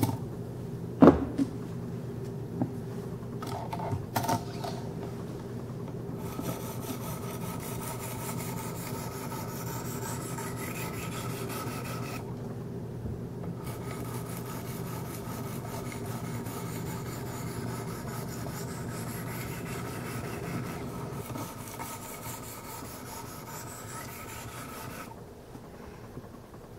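800-grit diamond stones of a Wicked Edge guided sharpener stroked repeatedly along a Kershaw Skyline's 14C28N steel blade: a steady scraping rub. There is a sharp click about a second in, and the stroking breaks off briefly about twelve seconds in and again near the end.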